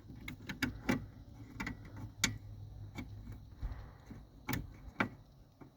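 Irregular sharp clicks and knocks of hand work on the hood latch cable mount: the cable bracket and screws being handled and fitted, over a low steady hum.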